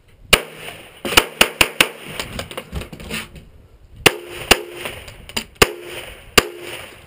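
Semi-automatic pistol shots fired in quick strings, about ten in all: a rapid run of four or five in the first two seconds, then pairs and singles about half a second to a second apart. Several shots are followed by a brief ringing tone.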